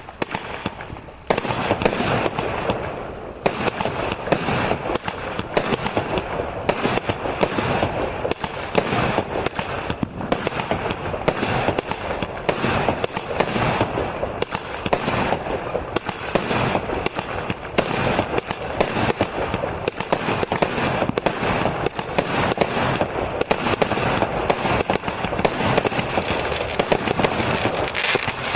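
Cosmic Fireworks Astral Raider firework firing a rapid, continuous barrage of shots and bursts, many a second, stepping up in loudness about a second in.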